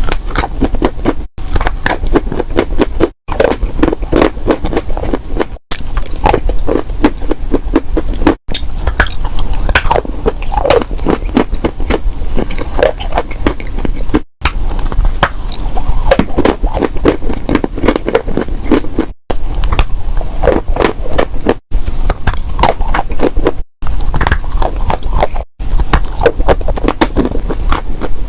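Close-miked crunching of dry, brittle clay being bitten and chewed, in a run of short clips that cut off abruptly every two to three seconds.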